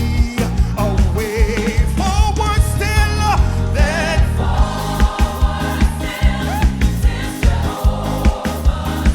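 Live gospel music: a choir and lead vocalists singing a hymn with vibrato over a band's bass and drums keeping a steady beat.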